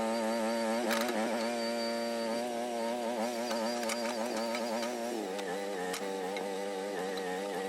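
Groundhog mini excavator's engine running steadily at working speed while the machine digs and grades. The pitch wavers with the hydraulic load and drops a little about five seconds in.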